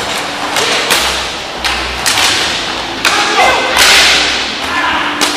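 Ice hockey play at close range: several sharp cracks of sticks striking the puck and the puck hitting the boards. About four seconds in, skates scrape and hiss across the ice in a hard stop.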